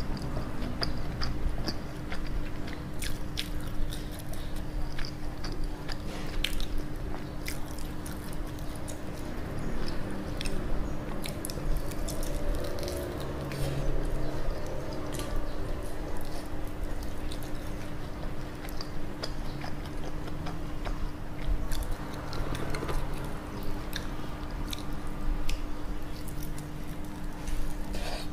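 Close-miked chewing and biting of sauce-coated fried chicken, with scattered sharp clicks and crunches of the coating, over a steady low hum.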